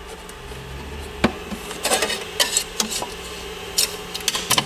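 Metal scraper scraping and clicking against a 3D printer's perforated build plate as a Z-ABS print is prised off: one sharp click about a second in, then a run of rough scrapes and clicks.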